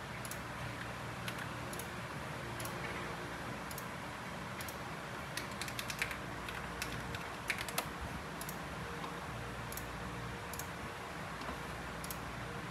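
Typing on a mechanical keyboard: scattered key clicks, with a quick run of keystrokes a little past the middle, over a steady background hiss.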